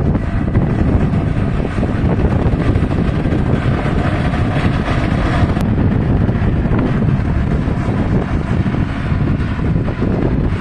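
Massey Ferguson tractor working in a field, its diesel engine running steadily under heavy wind buffeting on the microphone.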